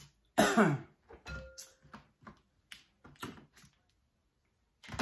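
Close-up eating sounds of a person with a mouthful of shellfish meat: a short voiced throat sound that falls in pitch about half a second in, then a run of brief wet mouth clicks and chewing noises.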